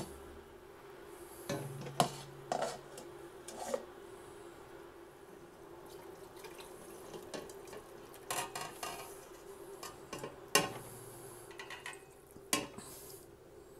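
Stainless-steel pots knocking and clanking several times, the loudest about two seconds in, again past ten seconds, and near the end, as a thickened roux-and-spice mixture is poured from one pot into a stockpot of chicken broth, with liquid pouring and splashing in between. A steady faint hum runs underneath.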